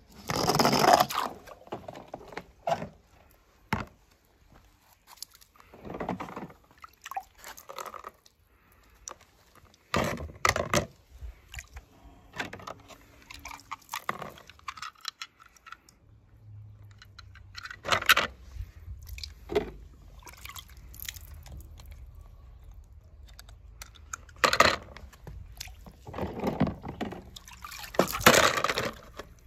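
Water splashing and dripping as small toy cars are dipped into a plastic tub of water and lifted out, with scattered knocks and rattles of the toys being handled.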